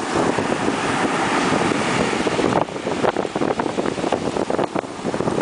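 Surf breaking on a sandy beach in a force 6 onshore sea breeze, with the wind buffeting the microphone. A dense, steady wash eases about halfway through into choppier, gusty buffeting.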